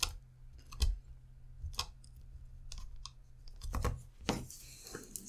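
Irregular sharp plastic clicks and knocks as small clips are pushed into holes in a 3D-printed lid with a screwdriver, with a short rustle near the end.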